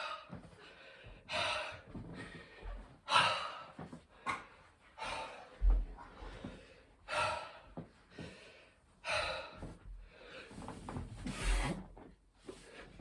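A man breathing hard and gasping mid-way through a set of burpees, with a loud breath about every two seconds, and two dull low thuds, one near the middle and one near the end.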